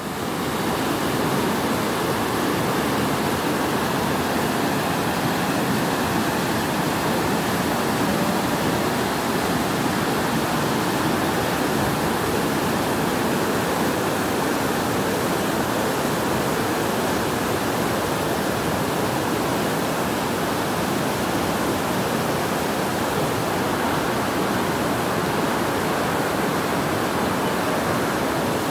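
Floodwater rushing fast over a street: a steady, unbroken noise of flowing water.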